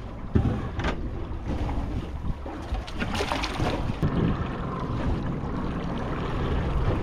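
Steady wind and water noise aboard a fishing boat, with wind buffeting the microphone and a low hum underneath. A few short knocks sound near the start, and a busier cluster comes about three seconds in.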